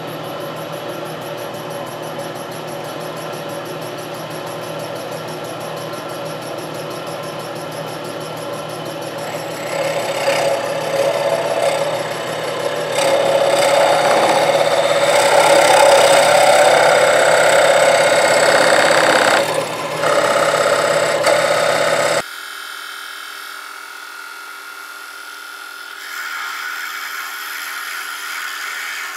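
Drill press motor running with a spade bit, which grows louder and rougher from about ten seconds in as the bit bores through the wooden body. At about twenty-two seconds the sound drops suddenly to a quieter machine hum.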